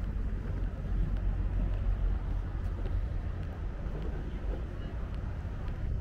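Wind buffeting the microphone, an uneven low rumble, with faint distant voices about halfway through.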